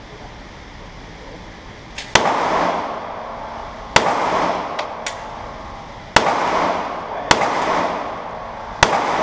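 Five shots from a 9mm Glock pistol at an uneven, unhurried pace, each followed by about a second of echo off the indoor range. A few fainter sharp cracks fall between them.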